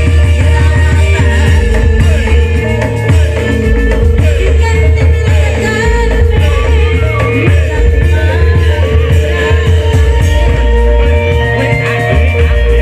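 Loud amplified music with a heavy, blocky bass line and a singing voice over held instrumental tones.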